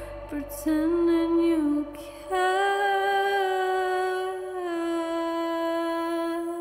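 Wordless female vocal from the end-credits music, humming a wavering melody over a low drone that stops about two seconds in, then holding one long note that dips slightly and begins to fade near the end.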